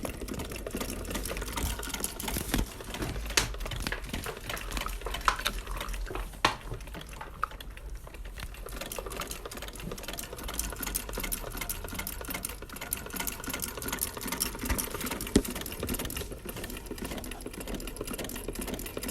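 SAVIKA heavy-duty sewing machine running steadily, its needle rapidly punching a line of holes through paper to perforate it. A few sharper clicks stand out along the way.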